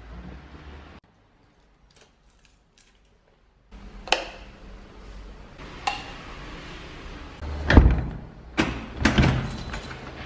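A few sharp clicks, then a run of heavier knocks and thumps in the second half.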